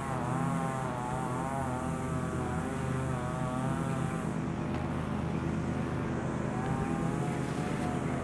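Steady engine drone, with a higher whine that wavers up and down in pitch above it. The whine fades about halfway through and comes back near the end.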